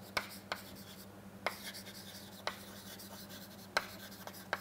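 Chalk writing on a chalkboard: soft scraping with about six sharp, irregular taps as the chalk strikes the board. A faint steady low hum runs underneath.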